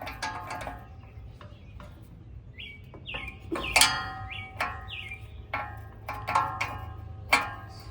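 Metal parts and tools clinking and tapping on an air-conditioner fan motor's mount, each clink ringing briefly, the loudest about four seconds in and again near the end. Small birds chirp repeatedly in the background.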